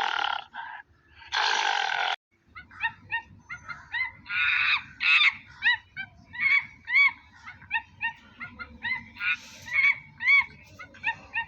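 Monkey calls: a few harsh calls, then a rasping screech, then a long run of short chirping calls, each rising and falling in pitch, several a second.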